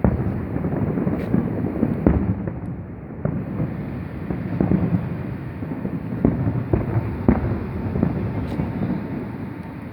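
Fireworks going off in quick succession: repeated sharp bangs, about one a second, over a continuous low rumble.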